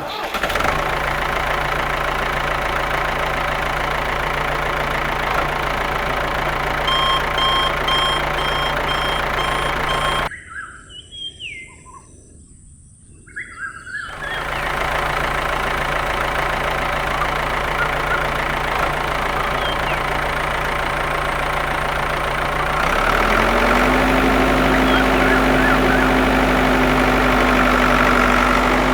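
Mini tractor's small engine running steadily, with a row of short beeps about seven seconds in. The engine cuts out for a few seconds around ten seconds in, leaving faint bird chirps, then comes back. It runs louder and at a higher pitch from about twenty-three seconds.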